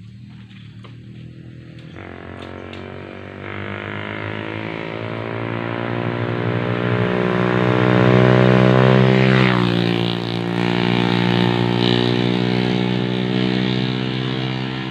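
A vehicle engine running under load. Its pitch and level climb for several seconds, drop sharply a little past the middle as if at a gear change or throttle-off, then hold steady.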